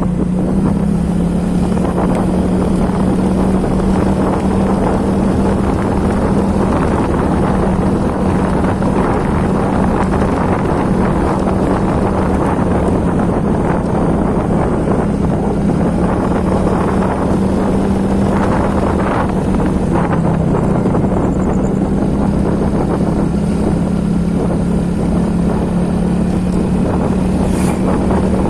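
A small engine running at a steady speed, its pitch wavering slightly, with loud wind or rain noise over it.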